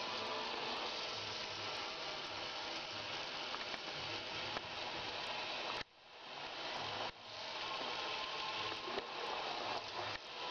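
Tap water running steadily from a bathroom faucet into a sink and over a wet cat lying under the stream. The sound drops out sharply for a moment twice, about six and seven seconds in.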